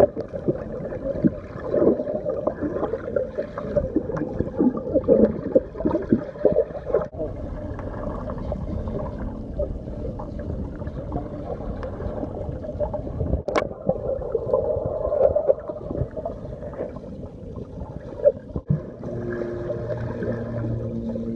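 Muffled underwater sound of a swimming pool picked up by a submerged camera: bubbles gurgling and surging as swimmers move, with one sharp click about two-thirds in and a steady low hum coming in near the end.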